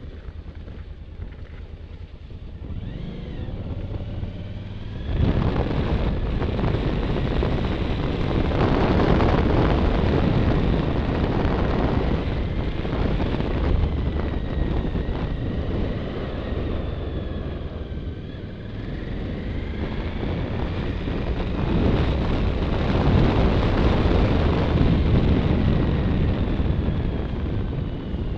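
Motorcycle engine running under way, mixed with wind rushing over the microphone. It gets louder about five seconds in, eases off around two-thirds of the way through, then picks up again, its pitch rising and falling with the throttle.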